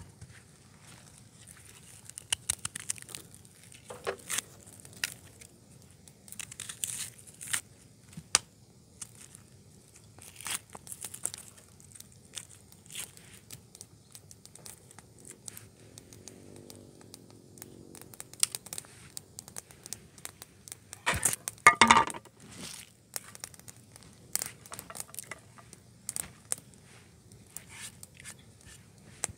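Irregular crinkling, tearing and light clicking handling sounds, with a louder cluster of sharp crackles about 21 seconds in.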